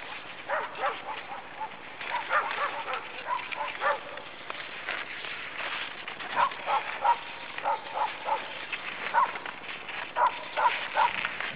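Dogs barking: short, sharp barks in irregular bunches, several a second at times.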